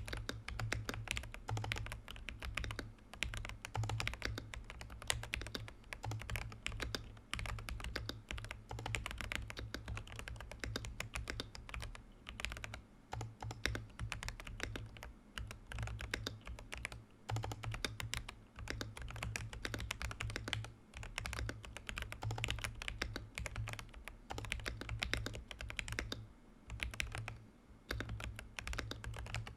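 Fast, continuous typing on a Command 65 prototype mechanical keyboard with tactile Holy Panda X switches, a POM plate and Domikey keycaps, its buzzer switched off. The keystrokes run as a dense clatter with a brief lull a few seconds before the end.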